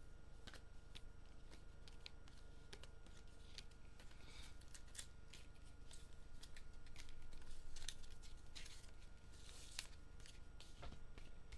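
Trading cards being sorted by hand on a tabletop: a run of faint flicks and taps as cards are picked up and laid down, with a few short rustling swishes.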